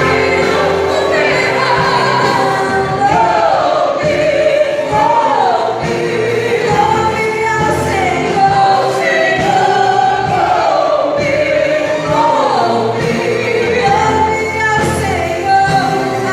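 Church orchestra with a choir singing a gospel song: steady held notes under a sung melody.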